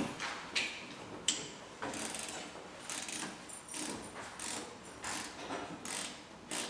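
Ratchet wrench clicking in short repeated strokes, about two a second, as a battery connection is tightened down.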